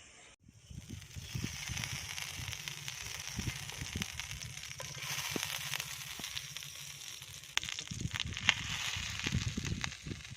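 Food sizzling in a pan over a wood campfire, with a steady hiss, a fluttering low rumble and scattered crackles from the burning wood; a few sharp pops stand out towards the end.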